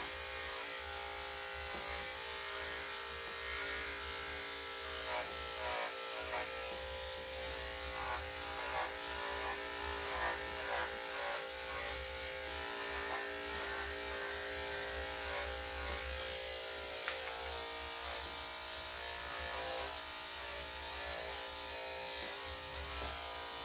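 Electric dog grooming clippers with a #10 blade running steadily, shaving wet, curly fur off a dog's body, with short uneven scratchy sounds as the blade cuts through the coat.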